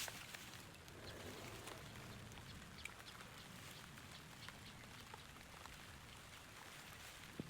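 Faint light rain: scattered drops ticking on surfaces over a soft, steady patter.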